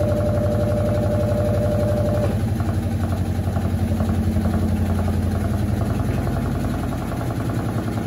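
Electrolux LAC17 top-load washing machine in its spin cycle, the drum spinning fast with a load of blankets: a steady motor hum with a rapid even pulsing. A higher steady whine rides over it and stops about two seconds in.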